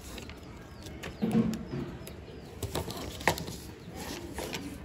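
Paper being folded and creased against a plastic ruler: rustling, with light clicks and taps, and a louder burst of handling noise a little over a second in.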